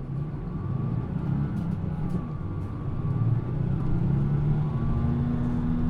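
Diesel engine of a Mitsubishi Fuso PA-MK25FJ city bus running under way, its low hum slowly getting louder as the bus gathers speed.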